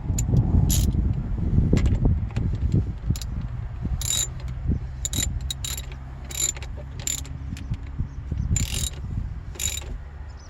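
Ratchet spanner clicking in short bursts as a fastening on the battery fittings is done up, with handling noise around it.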